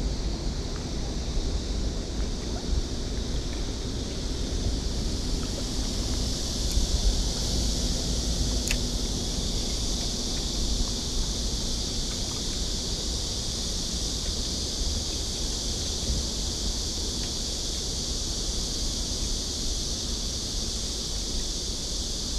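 Wind rumbling on the microphone under a steady high hiss, with a single sharp click about nine seconds in.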